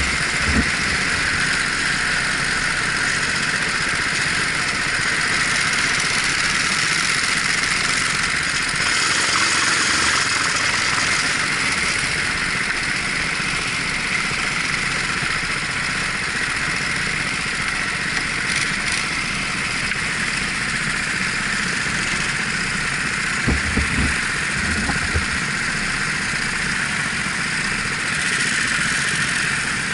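Racing kart engine running steadily under way, heard from a helmet-mounted camera as a continuous rushing drone. A few short low thumps come about two-thirds of the way through.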